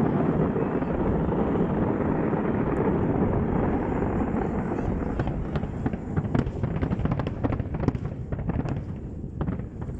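Fireworks display going off: a dense, continuous rumble of bursts, turning into many rapid crackling pops from about halfway through.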